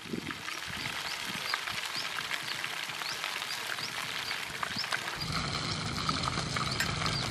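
Whole frogs sizzling in a hot steel wok: a dense crackle with many small pops. About five seconds in, a steady low hum joins the sound.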